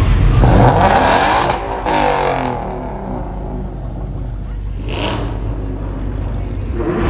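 Car engine revving, its pitch sweeping up and down over the first two seconds or so, then dropping to a lower, steady rumble.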